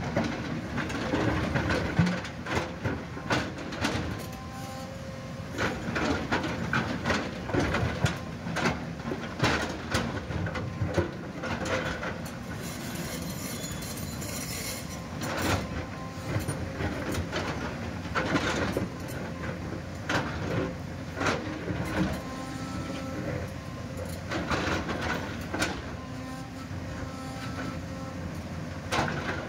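JCB JS-series tracked excavator working: its diesel engine runs steadily while the steel bucket digs and scrapes into broken shale. Rocks knock and clatter irregularly throughout as stone breaks loose and tumbles.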